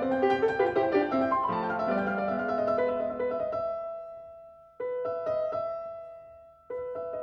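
Background piano music: notes dying away to near quiet, then the music cuts back in abruptly twice, about five seconds in and again near the end.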